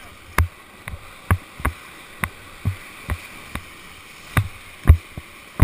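Paddle raft running a whitewater rapid: a steady rush of water with sharp, uneven thumps about twice a second, the loudest near the end, from paddle strokes and waves hitting the raft.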